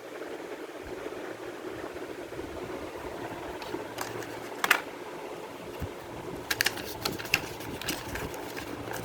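A steady low hum with a sharp click about halfway through, then a quick run of several clicks and taps a couple of seconds later.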